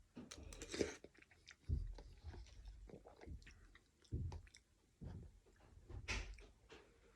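A person chewing mouthfuls of chicken noodle soup, with wet mouth clicks and smacks. Louder, noisier mouth sounds come about a second in and again near the end.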